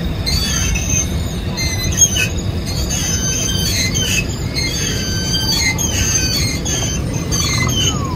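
Low steady rumble of a car rolling slowly, with high squeaky chirps and squeals repeating about once a second over it, and a single click about two seconds in.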